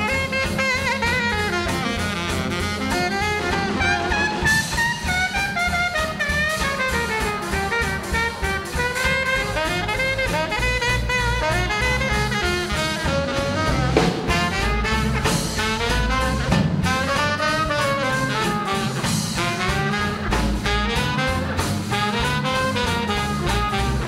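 Small swing jazz band playing live: a horn carries a wavering melody over upright bass, drum kit and guitar, with the trumpet playing near the end.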